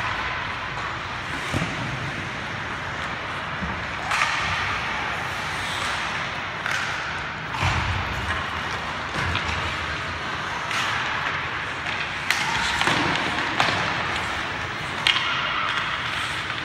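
Ice hockey play: a steady scrape of skates on the ice, broken by several sharp clacks and thuds of sticks, puck and boards.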